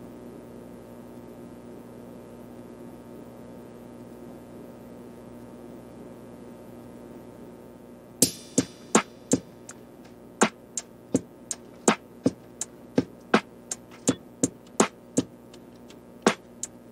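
Background music. A faint steady hum comes between tracks, then about eight seconds in a new track starts with sharp percussive beats at roughly two to three a second.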